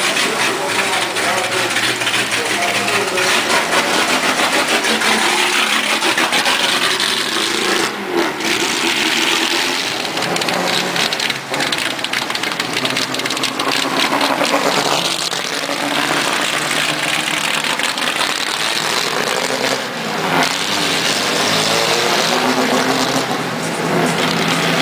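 Race car engines running loud in the pit lane, revving so the pitch falls and rises several times, with brief drops in level between revs.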